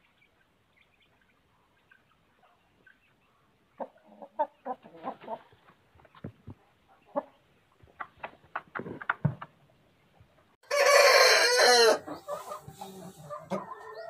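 Chickens clucking in short scattered calls and clicks, then a rooster, of the Aseel breed, crows once, loudly, for about a second, with quieter clucking after it.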